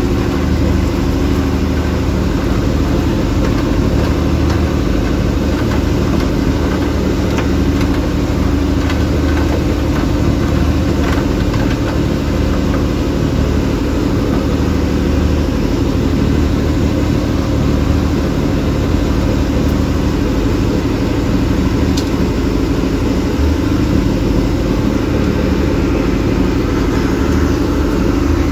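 A small fishing boat's engine running steadily under way, a constant low drone, with the rush of water from the wake along the hull.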